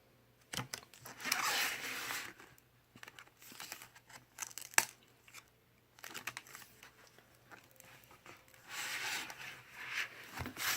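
Paper pages and cardboard flaps of lift-the-flap children's books being handled, rustling in two spells, with scattered sharp taps; the loudest tap comes about five seconds in.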